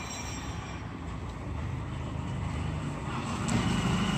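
Auto-rickshaw's small engine running as it drives closer, growing steadily louder. A thin high whine joins near the end.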